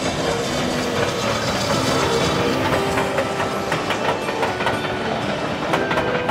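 Passenger train of coaches crossing a railway bridge, its wheels clicking rhythmically over the rail joints from a couple of seconds in, with background music playing throughout.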